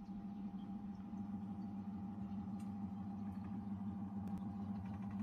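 Washing machine running its spin cycle: a steady hum with a low tone and a higher whine, and a few faint ticks. The drum is turning normally now that the drain hose has been repaired.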